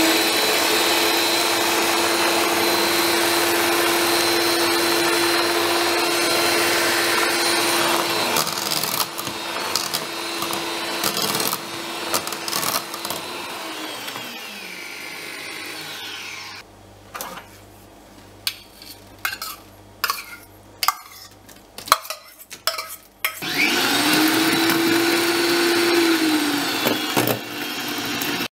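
Electric hand mixer with twin wire beaters running steadily through cake batter in a stainless steel bowl, its motor whine winding down about fourteen seconds in. A stretch of scattered clicks and knocks follows, then the mixer starts up again, runs for a few seconds and winds down near the end.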